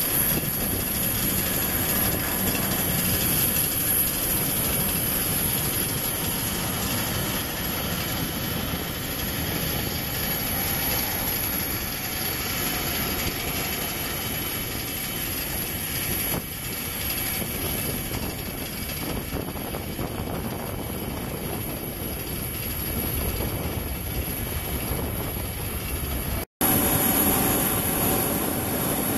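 Jet engine noise from a Boeing 747-400 freighter on final approach and landing, a steady rushing sound. Near the end, after an abrupt cut, a louder jet noise with a steady whine from an Ilyushin Il-76 freighter's four turbofans on approach.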